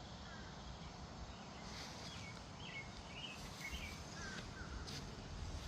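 Several short bird chirps, each gliding downward, in the middle seconds over a steady low outdoor rumble.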